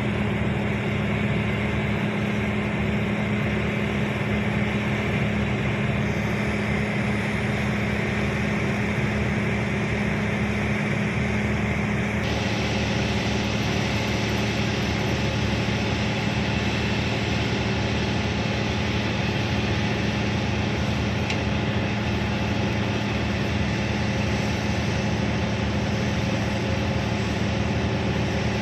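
A large Hitachi EX1200 hydraulic excavator's diesel engine running with a steady, even drone, its pitch shifting slightly about halfway through.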